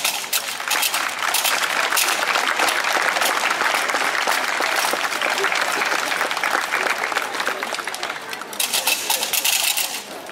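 Crowd of onlookers applauding: dense, steady clapping that thins out after about eight seconds, followed by a brief burst of sharp, bright clatter near the end.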